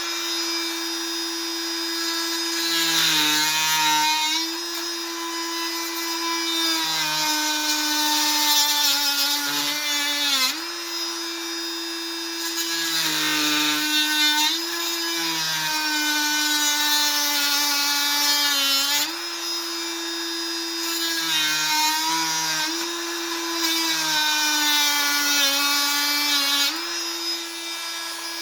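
Fein MultiMaster 500 cordless oscillating multi-tool fitted with a Bosch blade, running with a steady high buzz. Its pitch sags every few seconds as the blade is pushed into the cut under load, then comes back up.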